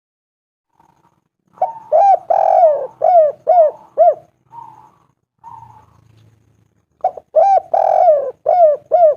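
Spotted dove (tekukur) singing: two phrases of short, rolling coos, each with one longer drawn-out coo in the middle. The first phrase starts about one and a half seconds in, a few soft notes follow, and the second phrase starts near the end.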